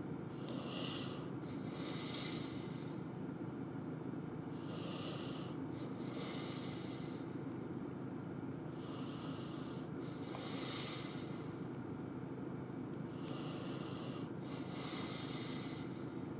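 A person breathing close to the microphone: short breaths every one to four seconds, over a steady low hum.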